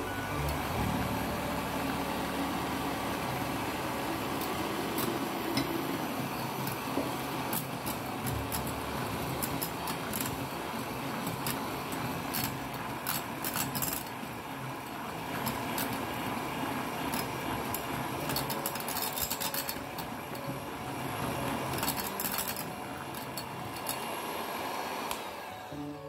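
Electric hand mixer running steadily, its twin beaters whipping egg whites to stiff foam in a glass jug, with frequent ticks as the beaters knock the glass. The motor stops right at the end as the beaters are lifted out. Background music plays under it.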